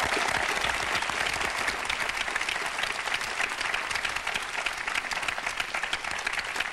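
Studio audience applauding, many hands clapping at once in a dense, even patter.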